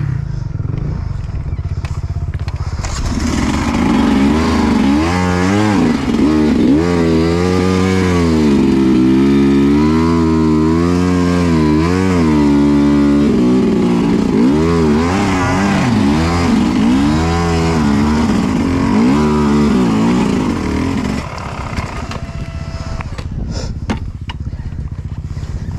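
Dirt bike engine running low at first, then revving up and down over and over for about eighteen seconds before dropping back to a low, steady run. The clutch is slipping, which the rider puts down to overheating.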